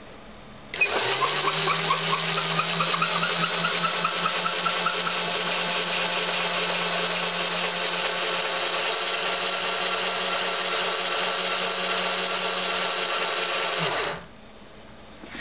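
Cordless drill's motor and gearbox turning a threaded lead screw. It spins up quickly, runs at a steady pitch for about thirteen seconds, then cuts off suddenly.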